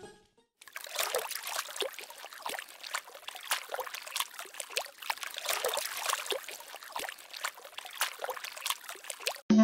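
A small dog swimming in a swimming pool, its paws paddling and splashing the water in a quick, irregular patter. It starts about half a second in and stops abruptly near the end.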